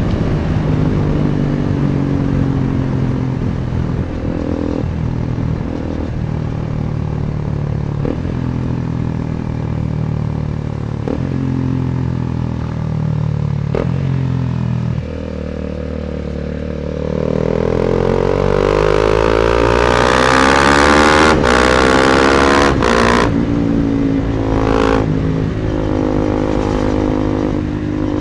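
KTM Duke 250's single-cylinder engine through an Akrapovic exhaust, heard on the move: the note climbs in steps broken by short clicks, drops off about halfway, then revs up hard. Heavy wind noise on the microphone rises with the speed and is loudest about two-thirds of the way in.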